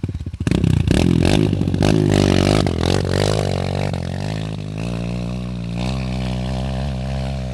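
Dirt bike engine revving up as the bike pulls away and climbs a steep grassy slope, then holding a steady pitch and growing fainter as it moves off. A few knocks and rattles come right at the start.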